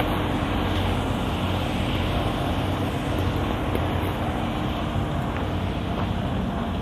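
Steady low rumble with a hiss above it, unbroken and even.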